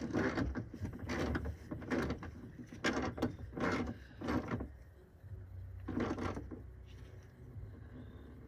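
A bolt on a battery hold-down bracket being tightened with a ratchet: about seven short clicking strokes with irregular pauses, dying away about five seconds in.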